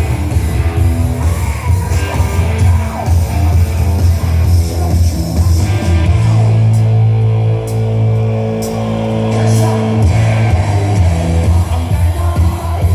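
Hard rock with singing, guitar and heavy bass, played loud through a car audio system. About halfway through the beat drops away under a long held low note and a few cymbal crashes, then the drums come back in.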